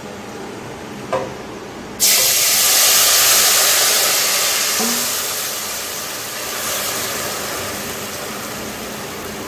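Watery white mustard-seed paste poured into hot oil in a pan: a sudden loud sizzle breaks out about two seconds in, then slowly dies down as the liquid settles in the oil.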